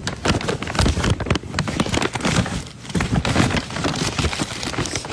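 Loud rubbing, crackling and knocking on a phone's microphone as the phone is handled and moved around.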